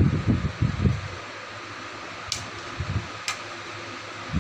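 A spoon handling chopped green chili on a ceramic plate: several low bumps in the first second, then two sharp clicks of the spoon against the plate, over steady background noise.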